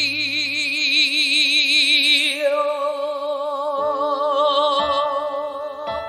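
A male singer holds a long final note with wide vibrato over soft accompaniment, ending the song after about three and a half seconds. A new accompaniment then starts with single struck notes, about one a second.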